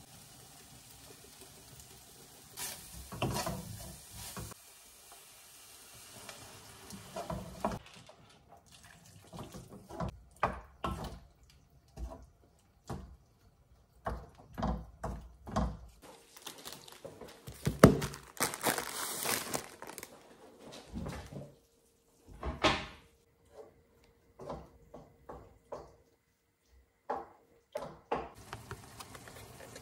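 Stir-frying in a wok: oil sizzling at first, then a wooden spatula stirring, scraping and knocking against the pan in a string of sharp clicks and taps, the loudest about eighteen seconds in.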